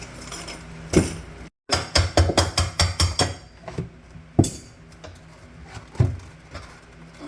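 Knocks and bangs from work under a kitchen sink. A single knock comes about a second in, then a quick run of about eight knocks at roughly five a second, then two more single knocks.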